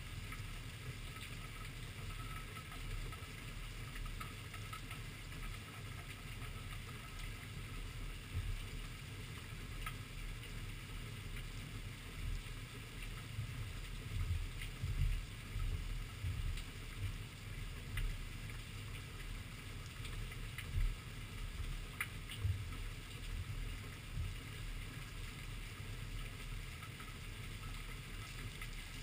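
Rainstorm picked up by a rain-spattered camera: a steady, muffled low rumble that swells in uneven gusts, with scattered sharp ticks of drops striking the camera.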